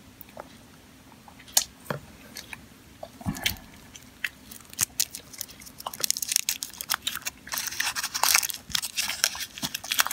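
Foil wrapper on a chocolate praline being peeled open by hand, crinkling in a dense crackle from about six seconds in, after a few scattered clicks and taps.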